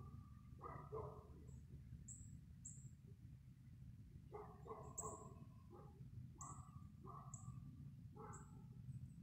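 Faint outdoor ambience: a distant dog barking several times and short, high bird chirps over a low, steady background rumble.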